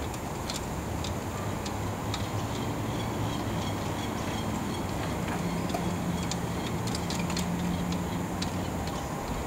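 Scattered light clicks and knocks of sailboat mast and tabernacle hardware being handled, over a steady low hum.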